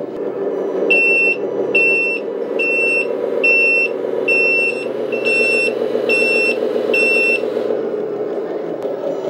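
A simulated truck reversing alarm from the model's sound unit beeps eight times, evenly spaced and high-pitched, over a steady simulated diesel engine idle.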